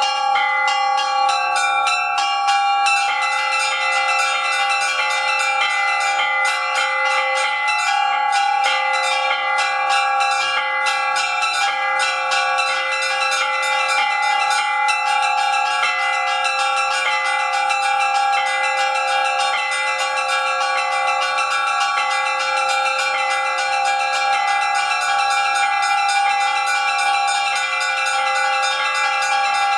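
Russian Orthodox church bells rung by hand in a continuous peal. Small bells are struck rapidly, several times a second, over the longer ringing of the bigger bells, and the tones overlap without a break.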